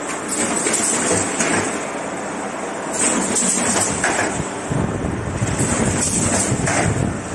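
Cardboard partition assembly machine running: a continuous mechanical clatter with irregular short hissing bursts and knocks.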